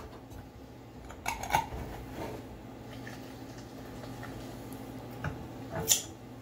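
A metal spoon clinking and scraping against a metal saucepan while ramen is stirred: a few scattered clinks, the loudest near the end, over a steady low hum.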